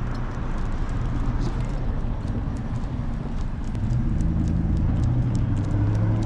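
Low, steady rumble of city street traffic that swells about four seconds in, with light irregular clicks of steps on the pavement.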